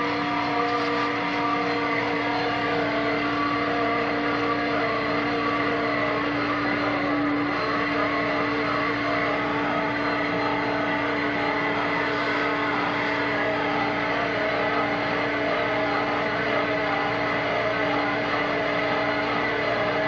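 Doosan excavator's diesel engine running steadily under load, driving a hydraulic auger that bores into frozen soil. A steady hum that sits over the engine noise cuts out about seven seconds in.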